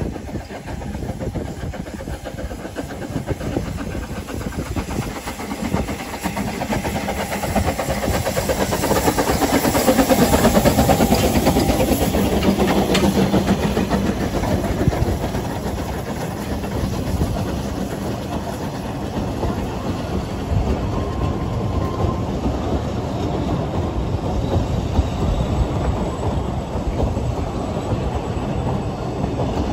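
Double-headed narrow-gauge steam locomotives, one of them 'Lyd', working past on departure, their steam exhaust and hiss growing loudest about ten to fourteen seconds in as the engines pass close. The coaches then roll by with a steady clatter of wheels over the rail joints.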